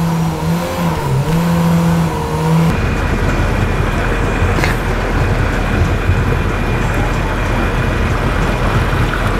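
The Watersports Car boat's engine and jet drive running at a steady pitch that dips briefly once. About three seconds in, the sound changes abruptly to an even rushing noise over a low rumble.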